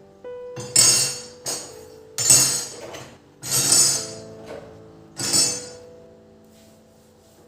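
Five short, loud, hissy swishes or slaps from dusting and cleaning, spread over the first five seconds, with soft piano music underneath.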